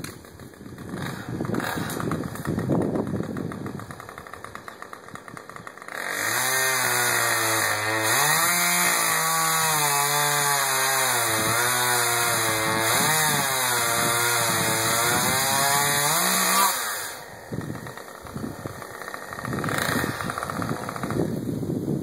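Husqvarna two-stroke chainsaw starting about six seconds in and running for roughly ten seconds, its engine speed rising and dipping, then cutting off suddenly.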